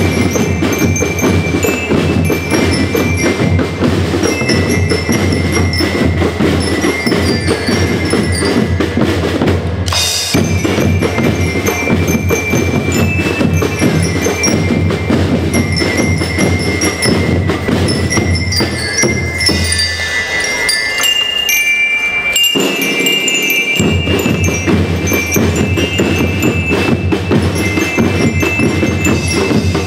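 School marching percussion band playing: bell lyres carry a melody over snare and bass drums. About two-thirds of the way through, the drums drop out for a few seconds and leave the bell lyres playing alone, then come back in.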